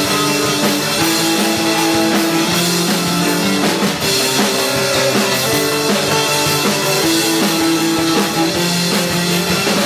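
Live rock band playing an instrumental passage: electric guitars holding sustained chords over a driving drum kit and bass, with no vocals.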